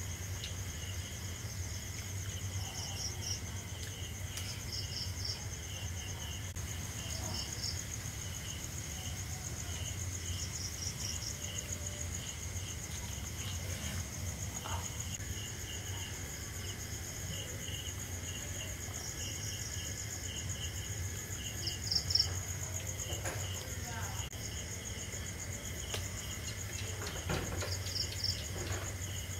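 Crickets and other night insects calling: a steady high pulsing trill, with groups of chirps repeating every second or two, over a low steady hum. A short knock comes about three quarters of the way through.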